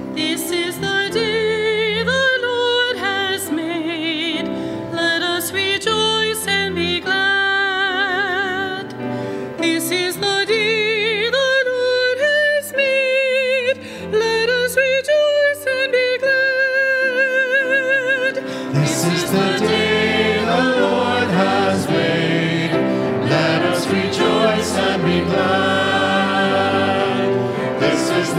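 A female cantor sings a responsorial psalm solo with vibrato over instrumental accompaniment. About two-thirds of the way through, more voices join and the singing becomes fuller and choral.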